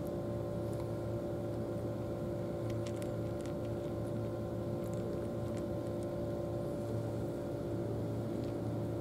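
A steady motor drone with a few fixed tones, unbroken throughout, with a few faint crisp clicks over it from a cat crunching dry kibble.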